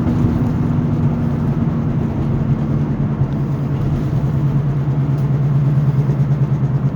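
Steady low hum and road noise inside the cabin of a moving 2005 Ford Freestar: the unexplained noise the driver is chasing, which comes with a vibration felt in the steering wheel. The hum grows a little stronger about two and a half seconds in.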